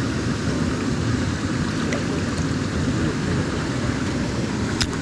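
Fast mountain stream water rushing over rocks in a steady, even rush, with a brief click near the end.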